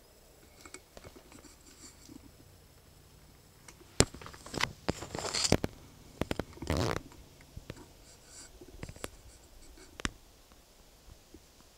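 Handling noise inside a hunting blind: a sharp knock about four seconds in, then a couple of seconds of knocks, scraping and rustling, with a few faint clicks later on.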